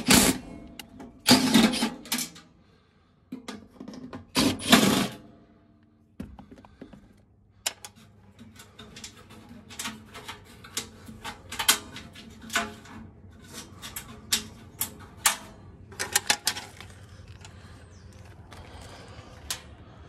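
RIDGID brushless cordless impact driver running three times in the first five seconds, each run about half a second to a second long, backing screws out of the sheet-metal blower compartment of a rooftop package unit. This is followed by many scattered short clicks and metallic clinks.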